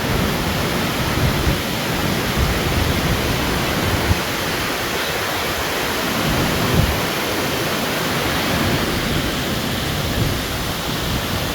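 Steady, loud rush of Mingo Falls, a tall waterfall, close to the microphone, with a few brief low bumps.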